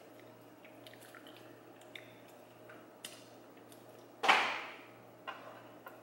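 Boiled shrimp being peeled by hand over a plate: faint crackles, clicks and squishes of shell and wet flesh. About four seconds in, a sudden loud hissing rush cuts in and fades within half a second.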